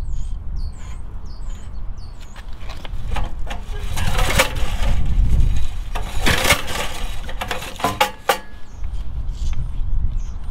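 Pull-starter of a 1978 Troy-Bilt Pony tiller's small engine yanked two or three times, the engine cranking without catching, typical of a long-stored engine not yet fuelled up enough to fire. A bird chirps about twice a second near the start and the end.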